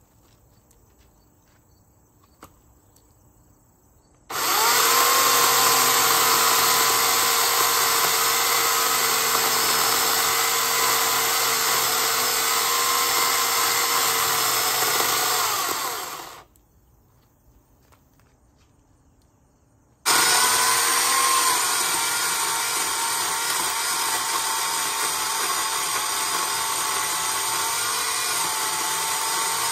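Sun Joe corded electric chainsaw cutting into a tree trunk in two long runs with a steady whine. It starts suddenly about four seconds in, runs about twelve seconds and stops, then starts again about twenty seconds in. Between the runs it is nearly silent.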